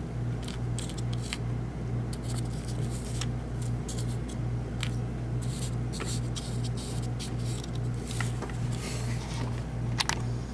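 Small scattered clicks and scrapes from handling a mortise lock cylinder and its parts, over a steady low hum.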